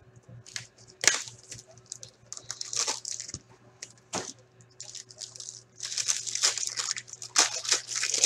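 Plastic wrapping and a foil-wrapped pack of hockey cards crinkling and tearing as the box and pack are opened by hand: irregular rustles and crackles with a few sharp clicks, busiest in the last two and a half seconds.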